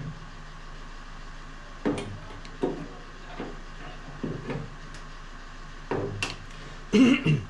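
About six short knocks and clicks, spaced unevenly, from a spot-welding dent puller being handled and pressed against a steel car body panel.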